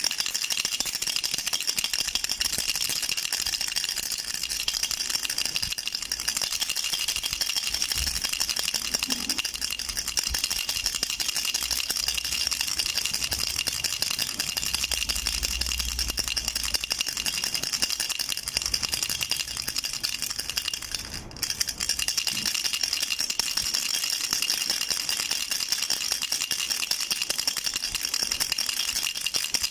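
A duck-shaped baby rattle shaken continuously, a dense, even clatter of small beads with a brief break about 21 seconds in.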